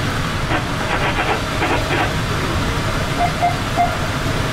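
SunRail commuter train running, a steady rumble with no rise or fall.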